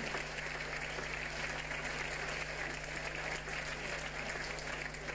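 Audience applauding steadily, a dense even patter of many people clapping.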